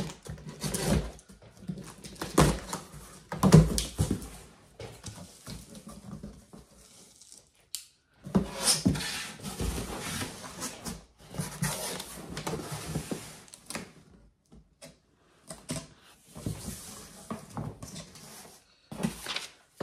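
A large corrugated cardboard shipping box being opened: packing tape slit with a cutter in a few sharp strokes, then the flaps pulled open and the cardboard inserts shifted, in longer stretches of scraping and rustling.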